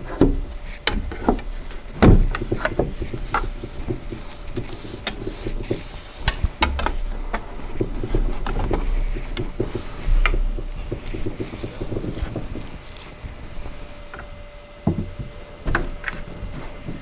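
Wooden changing-table frame being pressed down by hand to seat its side panel onto plastic pegs, giving a run of knocks, creaks and rubbing, with heavier thumps about two seconds in and again about ten seconds in.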